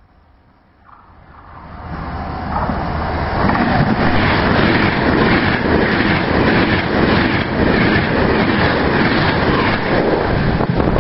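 Passenger train approaching and running through the station without stopping. A faint rumble swells over the first few seconds into a loud, steady rush of wheels on rail, with a regular clatter as the wheelsets pass the rail joints.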